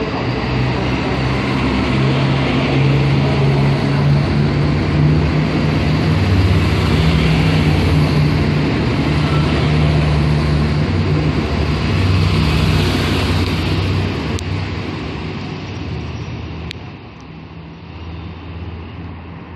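Siemens Desiro Classic (class 642) diesel multiple unit pulling out, its diesel engines under power with a steady low drone over wheel and rail noise, swelling in the first seconds and fading away after about fourteen seconds. Near the end a click and a cut leave quieter, more distant train noise.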